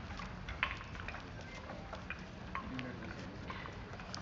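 Footsteps of people walking in wooden geta sandals on a paved street: irregular hard clacks, about three a second.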